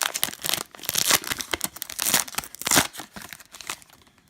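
A retail pack of football trading cards being torn open, the wrapper crinkling and rustling in irregular bursts of crackle that die away near the end.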